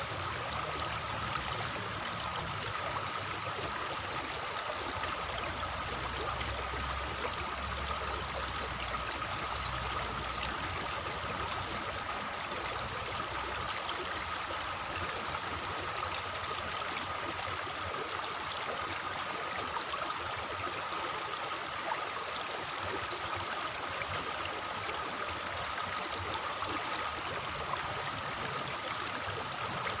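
Water flowing and trickling along a concrete farm irrigation channel: a steady, even rush that holds at the same level throughout.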